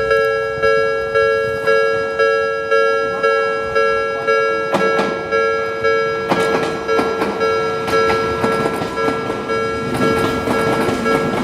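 Japanese railway level-crossing alarm ringing, a two-tone ding repeating about twice a second. From about five seconds in, the clacking of a train's wheels over the rail joints joins it and grows denser.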